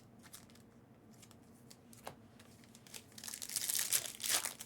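Plastic trading-card pack wrapper being torn open and crinkled, loudest from about three seconds in, after a few faint ticks of cards being handled.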